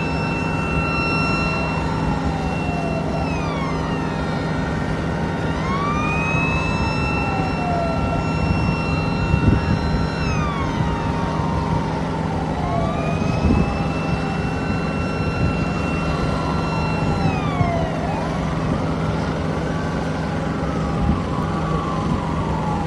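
Several emergency-vehicle sirens wailing at once, each rising, holding and falling in long overlapping cycles, over a steady low drone.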